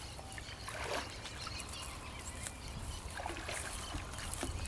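Outdoor background noise: a steady low rumble with scattered soft rustles and clicks, as people walk through grass.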